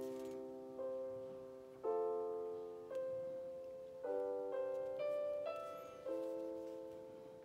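Background music: slow, soft piano, with chords struck about once a second and left to ring and fade.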